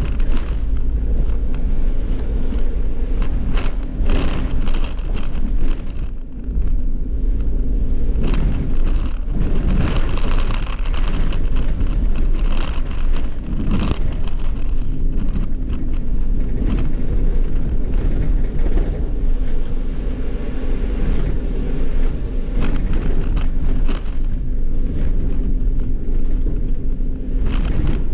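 Cab noise of an Irisbus Cityclass city bus with an Iveco Cursor CNG engine, running under way with a steady low drone. Frequent short rattles and knocks from the bus's body and fittings sound over it.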